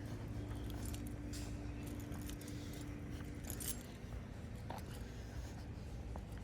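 Light metallic jingling and clinking over a steady low hum; the hum's tone drops away about three and a half seconds in.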